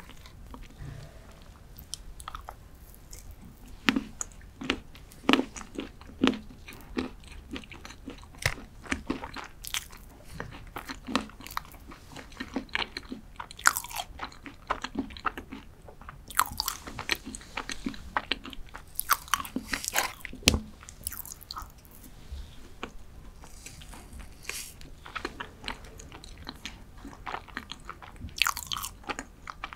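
Close-miked chewing of Godiva dark chocolate cheesecake: wet mouth clicks and smacks at an irregular pace.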